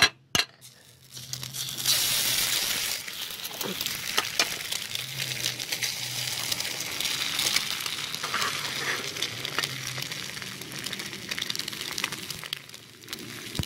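Two eggs frying in hot oil in a skillet, sizzling steadily. The sizzle starts sharply about two seconds in as the eggs hit the pan, with small crackles throughout. A couple of sharp knocks come at the very start.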